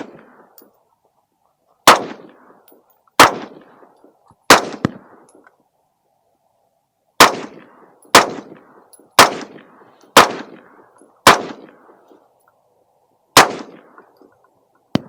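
A freshly home-built AR-15 rifle firing about nine single shots, roughly one every second or so with a longer pause after the third, each round feeding and cycling. A smaller sharp report comes near the end.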